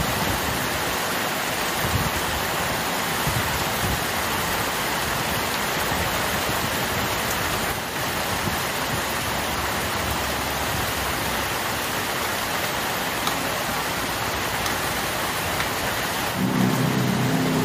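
Heavy rain falling steadily on leaves and ground, an even hiss. Near the end a truck's engine hum comes in and gets louder.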